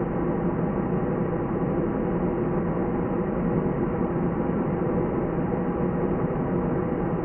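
Steady engine drone and air rush inside an airliner cabin in flight, an even rumble and hiss with a faint hum, unchanging throughout.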